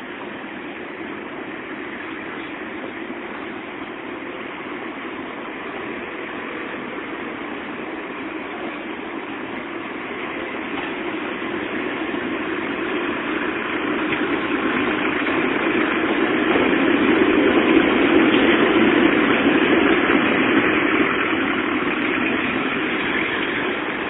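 A tram approaching and passing on street track: a steady rumble of traction motors and wheels on rails that slowly grows louder, is loudest about three-quarters of the way through, then eases off as it moves away.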